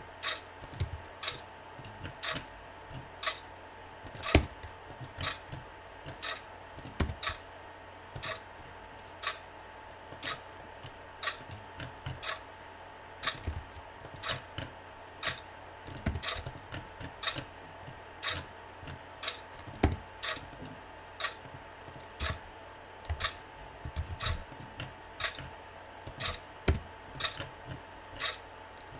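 Computer keyboard typing: a run of unevenly spaced key clicks, some struck harder than others, mixed with a clock ticking, over a faint steady hum.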